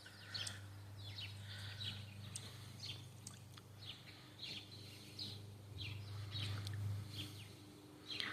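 Small birds chirping: many short, high chirps scattered irregularly, over a faint steady low hum.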